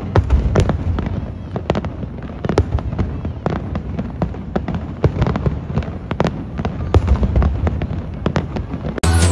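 Aerial firework shells bursting in rapid, irregular succession: many sharp bangs and crackles over a low rumble. Music cuts in at the very end.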